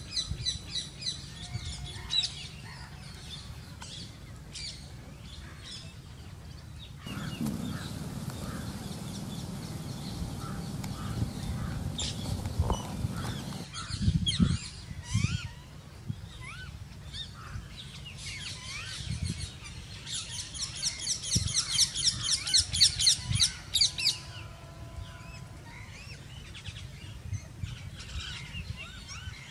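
Outdoor birdsong: birds call in fast runs of repeated high notes, briefly near the start and again for about four seconds past the middle, with scattered short chirps in between. A steady hiss runs for several seconds in the first half, and a few soft low thumps come a little before the middle.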